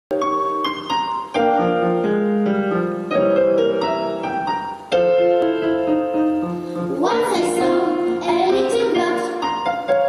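Digital piano playing a song introduction, its notes struck in clear chords and runs; about seven seconds in, a quartet of young girls' voices starts singing with the piano.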